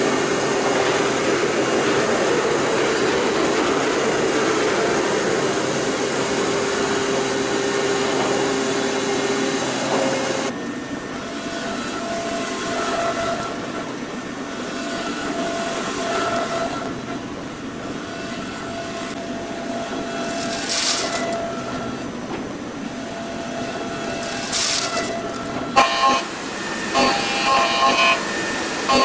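Hwacheon L1 2500 double-column machining center milling 6061 aluminium. At first a 4 mm flat end mill at 8,000 rpm makes a steady dense whir on a contour cut. About ten seconds in the sound changes abruptly to a quieter roughing cut with a 63 mm cutter, with steady whining tones that come and go. Near the end the cutting turns choppy and stop-start on a re-machining pass.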